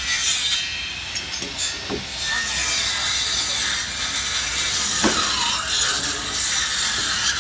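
Continuous rasping and scraping of timber, with a few sharp knocks: near the start, about two seconds in, and the loudest about five seconds in. The sound comes from workers handling wooden formwork boards and braces.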